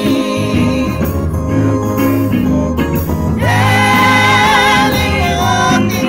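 Gospel praise song: a woman singing over an instrumental backing, her voice coming in strongly about halfway through.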